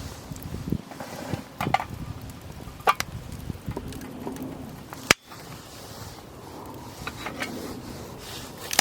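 Irregular knocks and clicks of things being handled, with a sharp knock about five seconds in.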